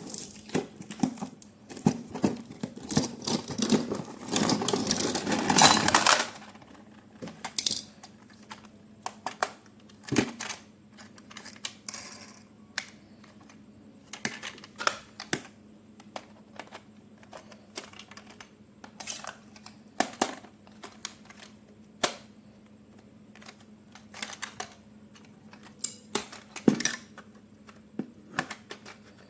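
Toy packaging and plastic parts being handled: about six seconds of dense crinkling and rustling, then scattered sharp clicks and taps of hard plastic.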